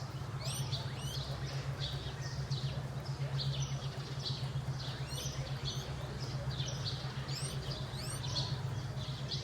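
High-pitched animal chirps, repeated about twice a second, some sweeping sharply upward, over a steady low hum.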